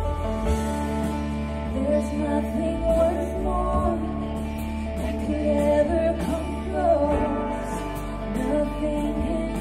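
A worship band plays a slow Christian song. Steady sustained low chords and bass run throughout, and women's voices come in singing the melody into microphones about two seconds in.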